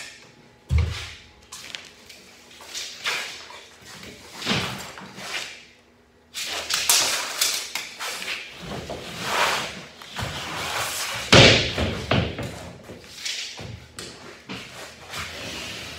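Drywall being handled and worked: irregular thumps and scraping strokes on gypsum board, with a heavy thud about eleven seconds in.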